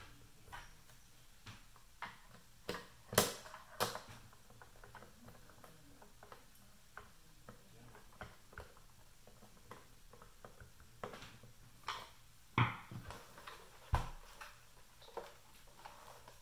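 Screwdriver driving screws into the plastic bottom housing of a Nellcor OxiMax N-600x pulse oximeter: a run of small scraping ticks and clicks, with a few sharper knocks on the plastic case, two about three seconds in and two more near the end as the unit is handled.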